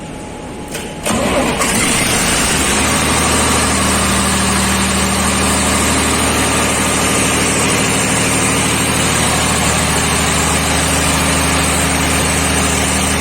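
Diesel generator engine starting about a second in, then running steadily at a constant speed.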